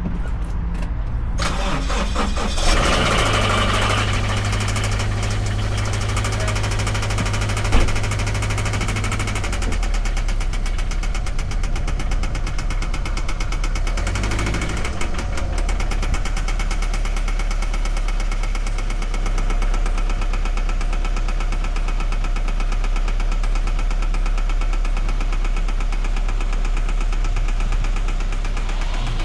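2013 Scion FR-S's 2.0-litre flat-four boxer engine cranked by the starter, catching about three seconds in, and running at a fast idle that settles about ten seconds in. Through the idle runs a rapid, even knock, the customer's complaint, on an engine later found to be misfiring on cylinder 4.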